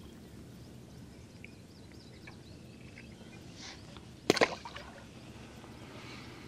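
A small fish dropped back into the lake beside the boat: one short, sharp splash about four seconds in, over faint water and wind.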